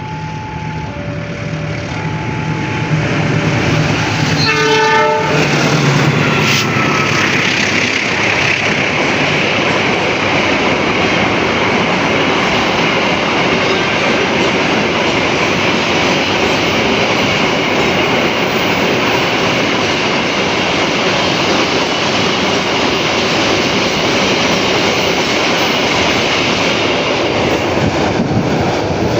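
A level-crossing warning alarm sounding two alternating tones, then a short train horn blast about five seconds in. A train then passes with a steady rush of wheels on rail until just before the end.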